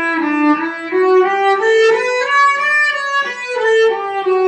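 Cello bowed in thumb position, playing a D major scale from the harmonic D, with notes stepping up and down at about three a second.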